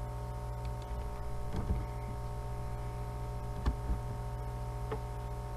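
Steady electrical hum in the recording, with two soft knocks about two seconds apart and a fainter click near the end.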